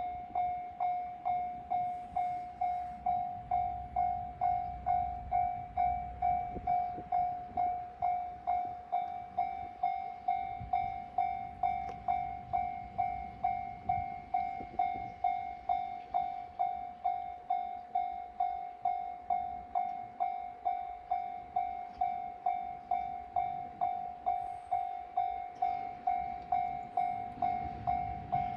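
Japanese railway level-crossing warning bell sounding its repeated electronic 'kan-kan' ding, about two strikes a second at one steady pitch. A low rumble runs underneath, strongest in the first several seconds and again near the end.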